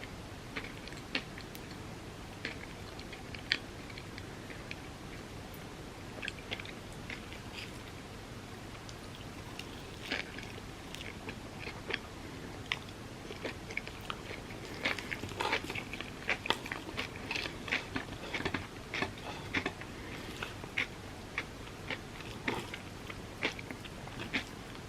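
Close-up eating sounds: biting and chewing chocolate-filled crepes, with small crunches and mouth clicks that come thicker in the second half.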